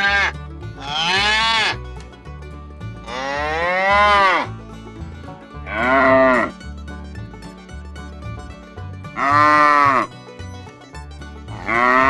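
Calves bawling: about five drawn-out calls, each roughly a second long and a few seconds apart, each rising then falling in pitch.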